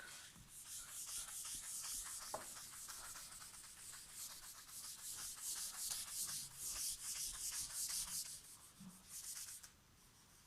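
A pen scratching on paper in quick, repeated strokes, as when drawing or shading in lines on a diagram. It stops shortly before the end.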